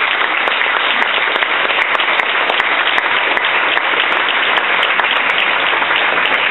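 Audience applauding steadily: many hands clapping at the end of a speech.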